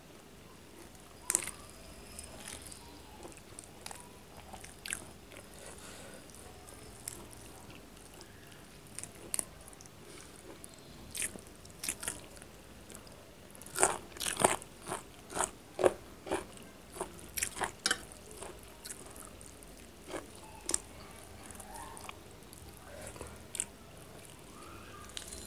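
Close-miked eating: crisp biting and crunching with chewing in between, thickening to a quick run of crunches around the middle.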